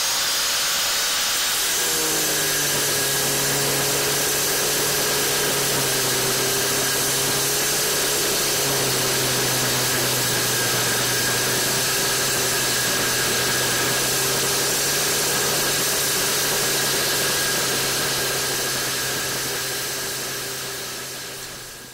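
Angle grinder with a cutting disc cutting the tabs off a steel footrest bracket, throwing sparks. The motor's steady whine drops in pitch about two seconds in as the disc bites, runs on steadily under load, and fades away near the end.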